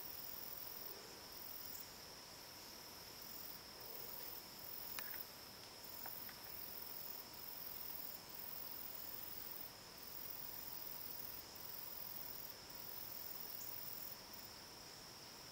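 Faint evening insect chorus: crickets trilling on one steady high note, with a still higher, shrill insect buzz that keeps starting and stopping.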